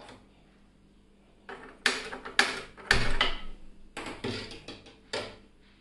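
Kitchen clatter from a metal pot being handled and set on the stove: a run of about eight sharp knocks and clanks over three or four seconds, some with a brief metallic ring.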